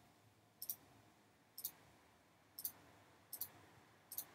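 Computer mouse button clicking, five faint clicks about a second apart, each placing a vertex while a face is drawn.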